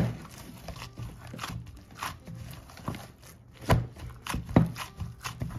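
Pizza dough being kneaded by hand in a bowl with a little oil: a run of irregular soft slaps and knocks, the loudest right at the start and twice around the middle.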